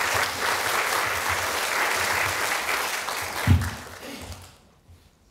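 Audience applauding, dying away about four and a half seconds in, with a single low thump about three and a half seconds in.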